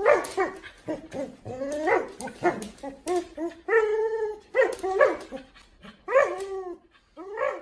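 Husky vocalising while tugging on a rope toy: a fast run of short calls that rise and fall in pitch, with one longer held call about halfway through.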